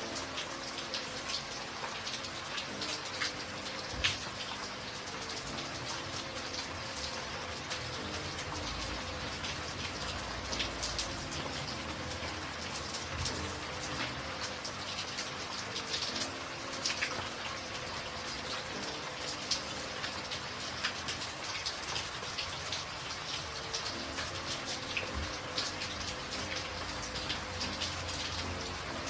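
Steady rain falling, with many individual drops striking close by as sharp ticks over an even hiss.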